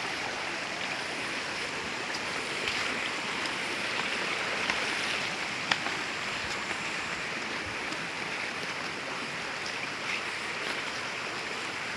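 River water rushing in a steady, even hiss, with one sharp click a little before the middle.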